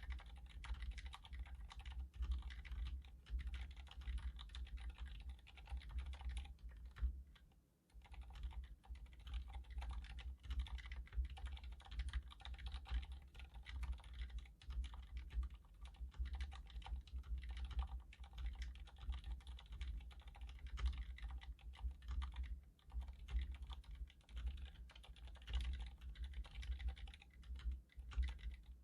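Fast continuous typing on an iQUNIX F96 mechanical keyboard with silent red linear switches, rapid key presses with a short pause about seven seconds in.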